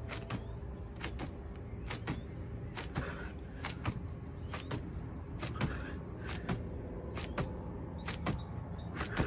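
Hands slapping down on a foam exercise mat during plyometric push-ups. Each landing is a quick double slap, one hand just after the other, repeating about once a second over a steady low hum.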